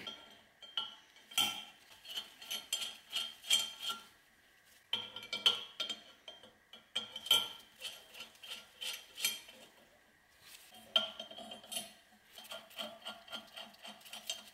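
Steel bolts, nuts and washers clinking and ticking against a stack of cast-iron brake rotors as they are fitted by hand. Light metallic clinks come in clusters, with short pauses about four seconds and ten seconds in.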